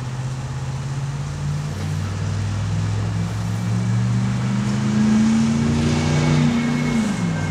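Motor vehicle engine running nearby, its pitch climbing slowly and then dropping away near the end. A faint high, steady tone joins in during the last second or so.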